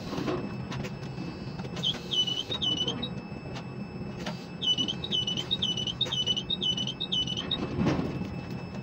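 Electronic warning beeper sounding short high beeps, about three a second, in two runs: a brief one near two seconds in and a longer one in the second half. Underneath is the steady low hum of quay crane machinery.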